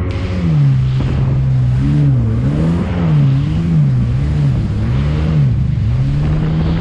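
Jet ski engine running at speed, its pitch rising and falling about once a second, over the rushing of water spray and wind.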